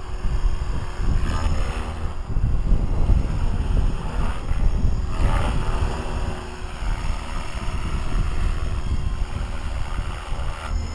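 Blade 360 CFX electric RC helicopter in flight, set up for low head speed: its rotor blades whoosh and its motor whines, swelling and fading as it manoeuvres, most strongly about a second and a half in and again around the middle. Heavy wind buffeting on the microphone is the loudest sound throughout.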